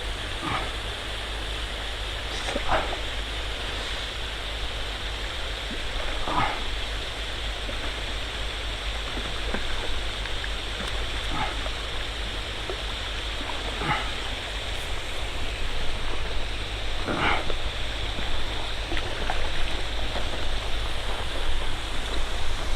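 Steady rush of flowing river water with a low rumble underneath, broken every two to four seconds by short calls from a distant animal.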